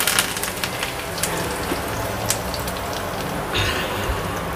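Hot oil sizzling in a small tempering pan as curry leaves fry with cumin seeds and urad dal, with a few sharp pops scattered through it. The sizzle swells briefly near the end.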